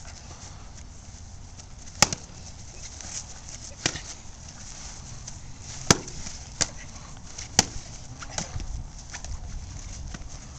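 Sharp, separate knocks of a fighting stick and a Calimacil mace striking in full-contact sparring, about six hits at irregular spacing, the loudest about 2 and 6 seconds in.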